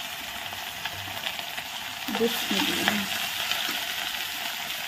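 Masala-coated fish pieces shallow-frying in hot oil in a kadhai, a steady sizzle with fine crackling.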